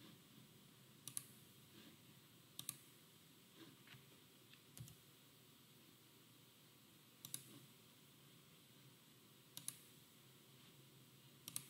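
Computer mouse clicks: about five sharp, isolated clicks a couple of seconds apart, several of them quick doubles, over a faint room hiss.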